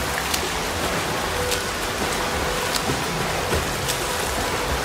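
Water splashing and churning from a swimmer's front-crawl arm strokes and kick. It makes a steady rain-like hiss, with a sharper splash about every second and a bit.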